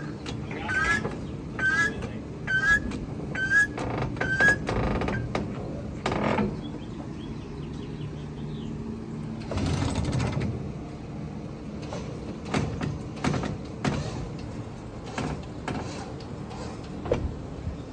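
A lifted Jeep ZJ being winched onto a trailer: a short rising squeak repeats about once a second for the first few seconds, then a low steady hum, a loud noisy burst around ten seconds in, and scattered knocks and clanks.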